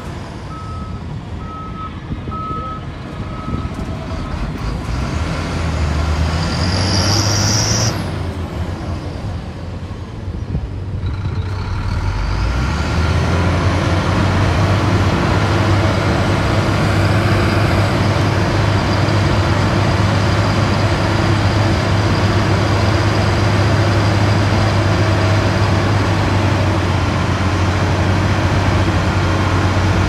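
Heavy diesel engines of a SHANTUI crawler bulldozer and dump trucks at work. A reversing alarm beeps several times in the first few seconds and a short high hiss of air comes about seven seconds in. From about twelve seconds in, a louder, steady engine sound with a deep hum takes over.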